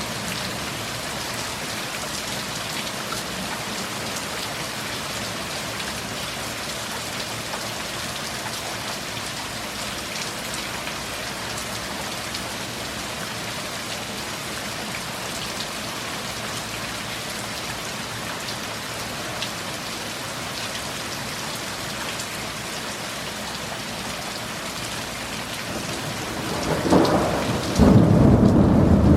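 Steady heavy rain. Near the end a loud peal of thunder rolls in and builds to the loudest point.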